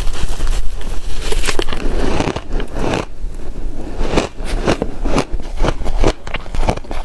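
Ice being bitten and crunched close to the microphone, a rapid, irregular run of crisp crunches and crackles that eases off briefly about three seconds in.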